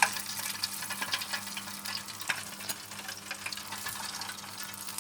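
Battered kingfish pieces deep-frying in hot oil: a steady bubbling, crackling sizzle, with a sharper pop right at the start and another a little past two seconds in.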